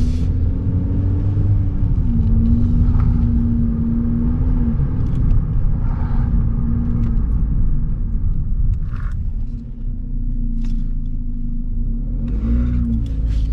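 Car driving, heard from inside the cabin: a steady low rumble of road and engine with a droning hum, and a few brief higher-pitched sounds every few seconds.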